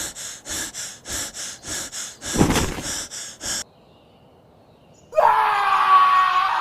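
A person panting hard and fast, about three breaths a second, with one louder gasp midway; the panting cuts off suddenly. After a short pause a loud, drawn-out cry starts near the end.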